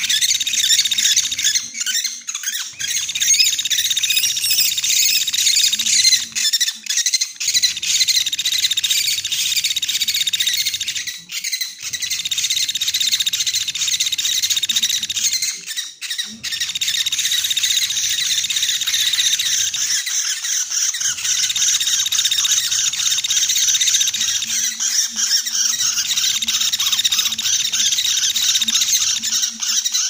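Pygmy woodpecker ('pelatuk beras') calls from a bird-trapping lure recording: a dense, high, rapid chattering that runs on without pause, with brief dips in loudness every four to five seconds.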